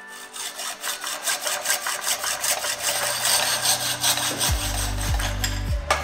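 Hacksaw blade cutting a bike tube clamped in a slotted saw guide, in quick repeated back-and-forth strokes. Background music comes in underneath about two seconds in.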